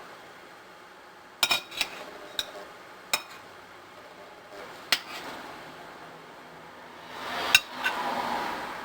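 Utensils and dishes clinking: a handful of sharp separate clinks, several close together in the first few seconds, with a short swell of rustling noise near the end.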